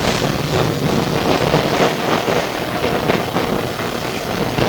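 SW5-class tram running, heard from inside the car: steady wheel-on-rail and running noise with a low hum and frequent rattles and clatters from the body.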